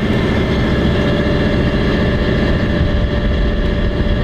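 A sailboat's inboard engine running steadily under way while motor-sailing, a constant drone with a low rumble and a steady whine.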